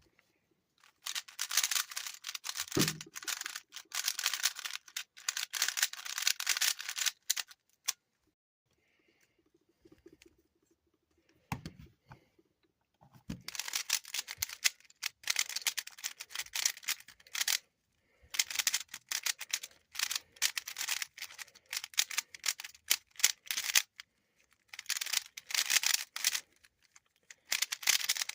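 Stiff, non-speed 3x3 plastic puzzle cube being turned fast during a solve: runs of rapid clacking and rattling from the layers, broken by short pauses, with a longer lull of several seconds in the middle.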